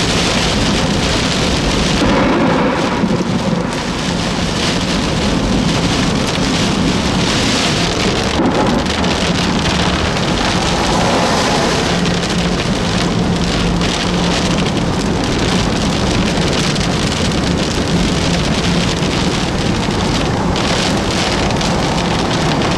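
Heavy rain hitting the windshield and roof of a moving car, heard from inside the cabin, with a steady low hum from the car underneath.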